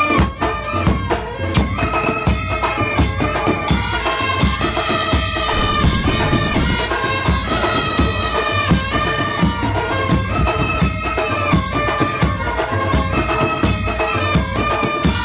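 Background music with a steady beat and a sustained, reedy melody line.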